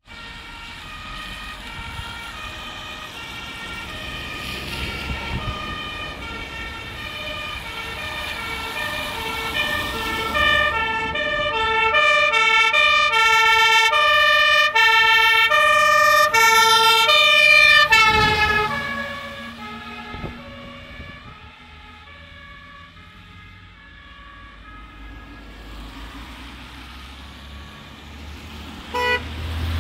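Dutch fire engine (MAN truck) on an emergency run with its two-tone siren alternating high and low. It grows louder as it approaches. As it passes, about two thirds of the way through, the pitch drops sharply, and the siren then fades as it drives away.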